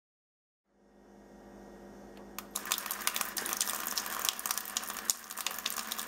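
Water streaming from a tube into a plastic bucket that already holds water, filling it to load the fishing line under test. It fades in about a second in, then from about two and a half seconds turns louder, with a dense crackling spatter.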